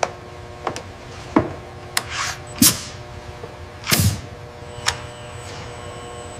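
Industrial robotic arm at work: a string of about seven sharp mechanical clicks and clunks mixed with short hissing whooshes, the loudest two near the middle, over a faint steady hum.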